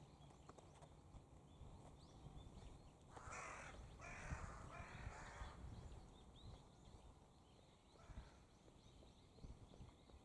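A crow cawing three times in quick succession, each caw harsh and under a second long. Faint short chirps of small birds are heard around it.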